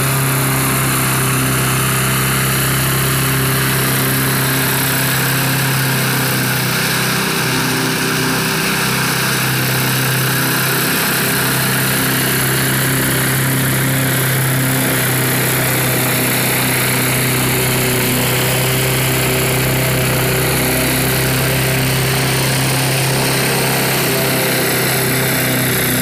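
Radio-controlled four-wheel-drive lawn mower running steadily, a constant low hum with a higher whine that slowly rises and falls in pitch as it drives.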